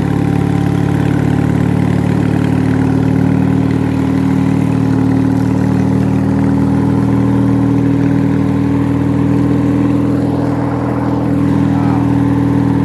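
Lawn tractor's Briggs & Stratton opposed-twin engine running steadily as the tractor drives, easing off briefly about ten seconds in.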